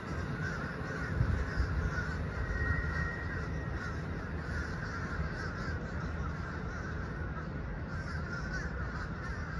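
Low, steady rumble and rolling noise of a passenger train pulling away around a curve, heard from a distance.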